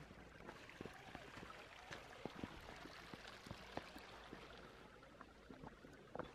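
Near silence: a low hiss with faint, irregular footsteps and scuffs on bare granite rock.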